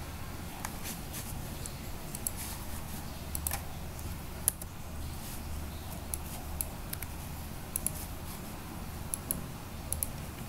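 Irregular sharp clicks of a computer mouse and keyboard keys, the loudest single click about four and a half seconds in, over a steady low hum.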